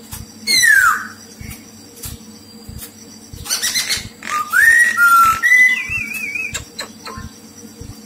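White-cheeked laughingthrush singing: a loud falling whistle about half a second in, then from about three and a half seconds a run of clear whistled notes, several rising, ending in a wavering, warbled note.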